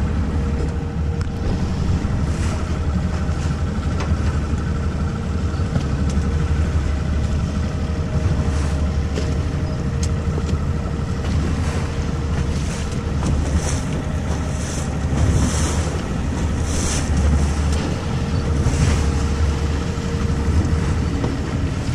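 Boat engine running with a steady low drone, over wind on the microphone and rushing water, with short bursts of hiss now and then in the second half.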